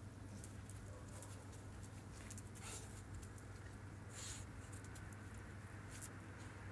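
Two dogs nuzzling and sniffing at each other: faint sniffs and soft scuffling, a couple of short sniff-like bursts, over a steady low hum.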